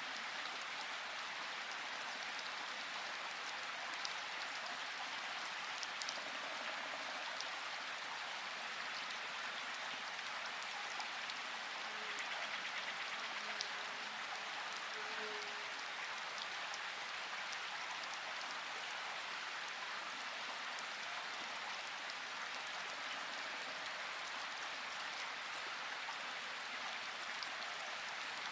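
Steady rain falling, an even hiss with now and then a single louder drop ticking through it.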